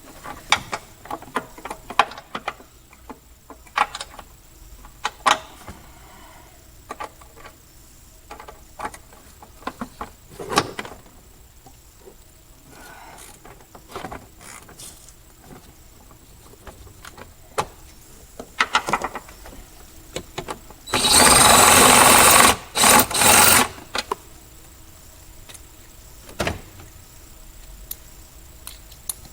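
Tools clicking and knocking on a 10 mm bolt and bracket in an engine bay, then a power tool, a cordless ratchet or impact driver, runs loudly in three short spurts, about two and a half seconds in all, turning the bolt.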